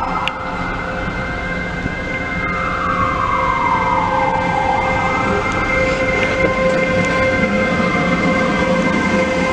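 TrainOSE class 120 electric locomotive passing slowly at close range, with a steady electric whine over the rumble of the running gear. A siren wails slowly up and down twice in the background.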